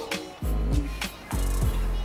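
Background music with a deep bass line and a steady beat.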